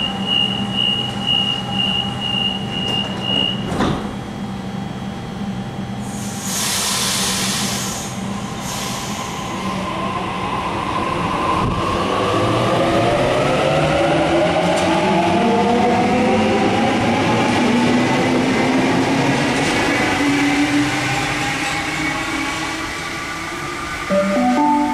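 Door-closing warning beeps on a Sydney Trains Waratah electric train, a thud as the doors shut, then a burst of air hiss. The traction motors then whine in several pitches that rise steadily as the train accelerates away from the platform. A station announcement chime starts near the end.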